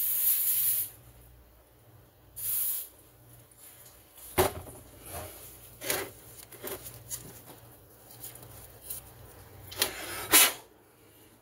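Two short hissing bursts from an aerosol spray can, the first at the start and the second about two and a half seconds in. Scattered sharp clicks and taps of small parts and the can on the bench follow, the loudest near the end.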